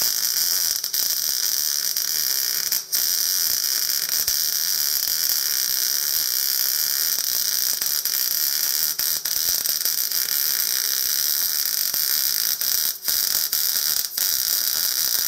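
MIG (gas metal arc) welding arc running a bead on steel wheel rims: a steady hiss with a few brief breaks, cutting off sharply at the end as the trigger is released.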